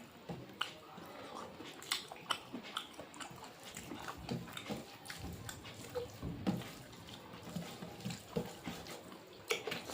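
Close-miked eating sounds: irregular chewing, mouth clicks and lip smacks.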